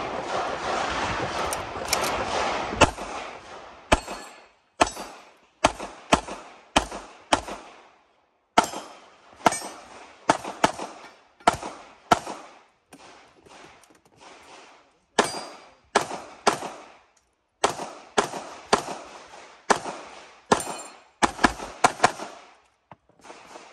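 Pistol shots fired in quick pairs and short strings, about thirty in all with brief pauses between strings, as a competitor shoots a course of fire at targets. A steady rushing noise lies under the first few seconds.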